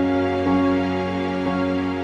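Slow, gentle background music: sustained chords changing about every second, in a sad, tender mood.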